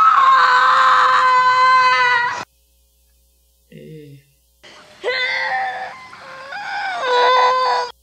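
High, drawn-out crying from a TV drama's birthing scene: one long steady cry that cuts off suddenly about two and a half seconds in, a brief low sound near four seconds, then more wavering cries from about five seconds that stop abruptly at the end.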